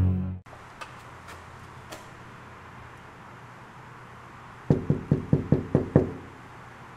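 Background music cuts off about half a second in. Near the end, a fist knocks rapidly on a door: about seven raps in a second and a half.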